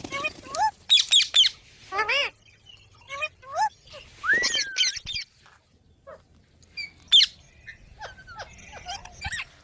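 Indian ringneck parakeets squawking in a rapid series of short, harsh calls that rise and fall in pitch, as in a squabble. The calls thin out and quieten after the middle.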